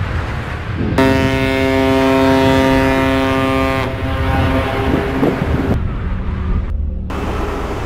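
A ship's horn sounds one steady blast of about three seconds, starting about a second in. Under it runs a continuous low rumble from a ship working through sea ice.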